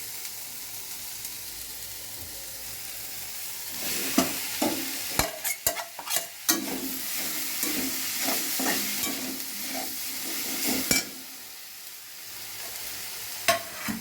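Boiled chicken frying in hot oil in a pan, with steady sizzling. From about four seconds in, the sizzle grows louder and a spatula stirs the pan in sharp knocks and scrapes until about eleven seconds, then the sizzle settles quieter with one more knock near the end.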